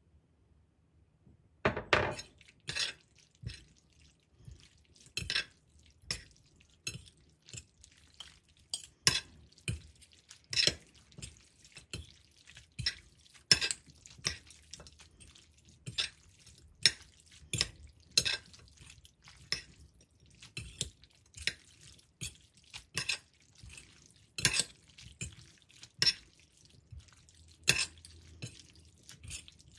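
Metal fork and spoon clinking and scraping against an oval ceramic plate while tossing fettuccine, working butter, grated cheese and pasta water into a creamy sauce. The clinks are irregular, about one or two a second, and begin about two seconds in.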